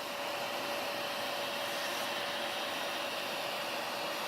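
Vacuum cleaner running steadily, hoovering the last dust out of an opened LCD projector: a continuous rush of air with a steady whine.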